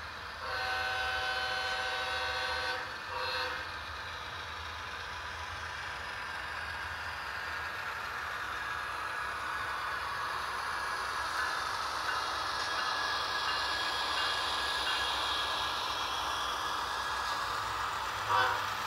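Model BNSF diesel locomotives' sound-decoder horn, blown once long and then once short within the first few seconds. After that comes a steady diesel engine sound and running noise that slowly grows louder as the locomotives come past, with another brief sound near the end.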